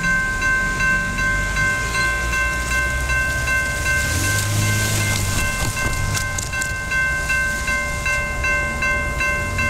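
Railroad grade-crossing bell ringing steadily at about two strikes a second, warning of an approaching train. A car rumbles over the crossing about four seconds in.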